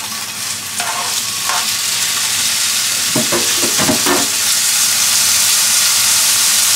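Cut-up chicken sizzling as it fries in a hot pan, the sizzle building over the first second and then holding loud and steady. A few knocks and clinks of a utensil against the pan come about three to four seconds in.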